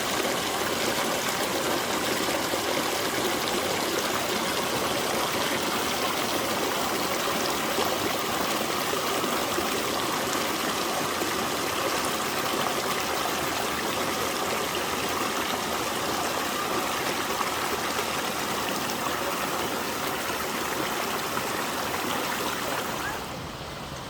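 Mountain stream water rushing and splashing over rocks in a steady, even flow, dropping a little in level shortly before the end.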